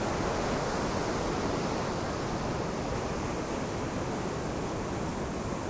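Rough ocean surf breaking, a steady rush of churning water.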